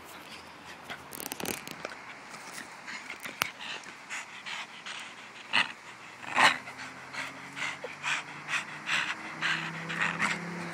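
A Jack Russell–Staffordshire bull terrier cross panting hard in quick rhythmic breaths, about two a second, while tugging on a stick. The panting gets stronger about halfway through.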